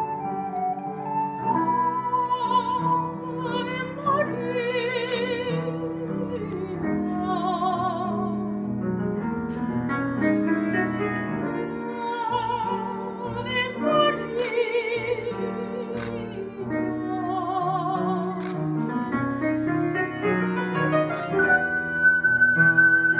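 Ocarina and operatic soprano duet with piano accompaniment. The ocarina plays pure, steady held notes at the start and again near the end, and a soprano sings with wide vibrato through the middle.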